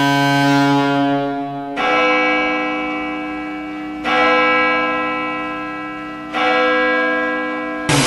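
Vityaz Podolsk's arena goal horn sounding a multi-tone chord in long blasts, a fresh blast about every two seconds, each fading slowly into the next. Near the end it gives way to a noisier wash of crowd and goal music.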